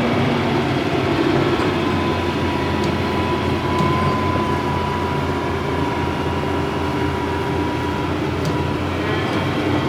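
Hitachi hydraulic excavator's diesel engine running steadily under work, with a thin steady whine above the engine drone and a few faint ticks.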